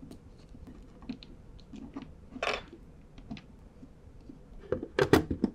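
Hand work at a two-pole miniature circuit breaker's screw terminals: a screwdriver and wires make faint scattered clicks and a short rustle about halfway through. A few sharper plastic clicks come near the end.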